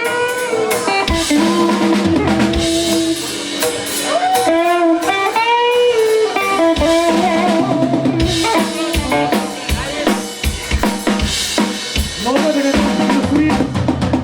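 Live band playing loudly: a drum kit with bass drum and snare hits under guitar with bending notes.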